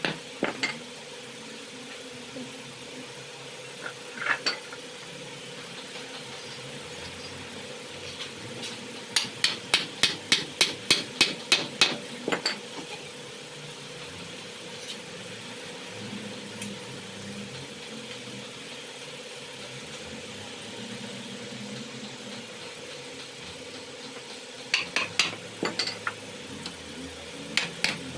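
Runs of sharp knocks, about three a second, over a steady low hum, with a few single knocks between the runs.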